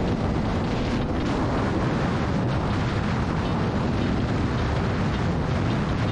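Yamaha R6 sport bike's inline-four running through an Akrapovic full exhaust, accelerating at highway speed, under heavy wind rush on the microphone.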